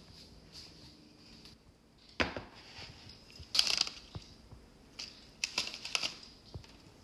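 Plastic packet of seasoned laver (gim) crinkling as it is handled, in a few short sharp crackles, the loudest a little past halfway.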